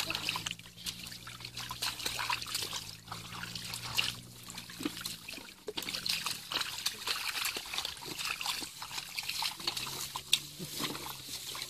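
Bare feet and hands squelching and sloshing through wet mud and shallow muddy water: many small wet clicks and trickles. A faint low hum sits underneath for much of the time.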